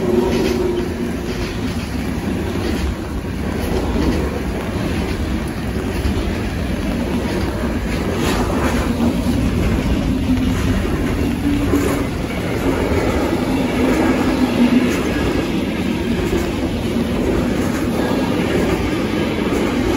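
Intermodal freight train's wagons, loaded with containers and semitrailers, rolling past: a steady rumble of steel wheels on the rails with an occasional sharp click as wheels cross rail joints.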